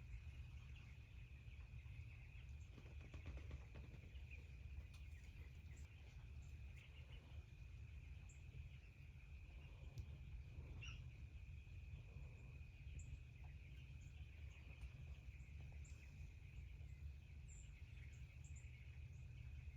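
Near silence: quiet woodland ambience with a faint steady high-pitched hum, a low rumble and a few faint scattered bird chirps.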